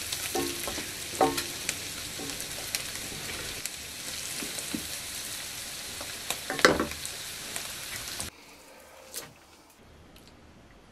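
Food sizzling in a hot pan while being stirred, with scrapes and clicks of a utensil against the pan. The sizzle cuts off abruptly about eight seconds in, leaving it much quieter.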